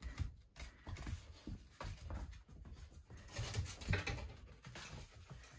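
Paws and claws of a red fox and a puppy pattering and scrabbling on a tile floor: quick irregular taps and soft thumps, loudest about four seconds in.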